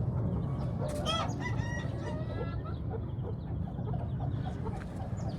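Aseel rooster crowing once, starting about a second in and lasting about a second and a half, over a steady low background rumble.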